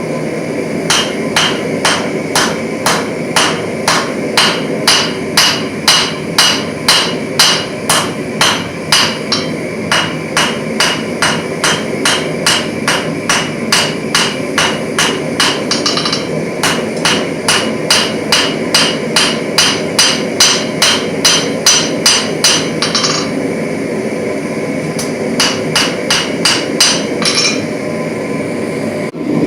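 Hand hammer striking a hot grade 5 titanium bar on an anvil in steady runs of about two to three blows a second, each blow ringing, with a few short pauses between runs. Steady noise underneath.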